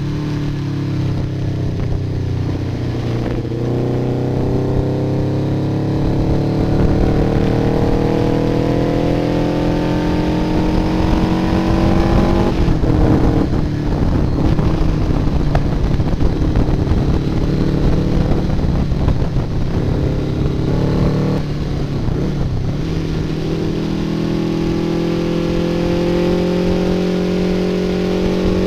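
MV Agusta 600 inline-four motorcycle engine under hard acceleration on track, heard from on board. Its pitch climbs steadily for several seconds, drops about twelve seconds in and again about twenty-one seconds in, then climbs again near the end.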